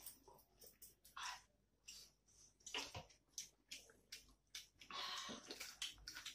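Close-miked eating sounds: wet chewing and slurping of noodles and soup, with small clicks of forks and spoons against bowls and plates. A longer slurp comes about five seconds in.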